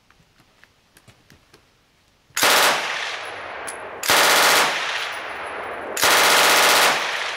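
Finnish KvKK 62 light machine gun firing 7.62x39mm in three short bursts at a very high rate, the first starting about two and a half seconds in and the last the longest, each followed by a ringing echo.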